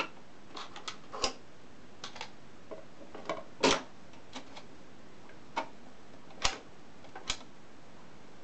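Dansette Apollo record player's autochanger going through its cycle: a run of irregular mechanical clicks and clunks, the loudest about three and a half seconds in, then quieter near the end.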